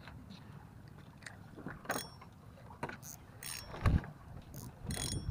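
Handling noise from a spinning rod and reel: scattered light clicks and rattles, with a dull thump about four seconds in as a sleeve brushes over the camera, over a low wind rumble.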